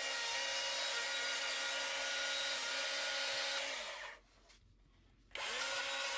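Small electric chainsaw running at a steady pitch as it trims wood. It winds down and stops about four seconds in, then starts again a second later and speeds back up.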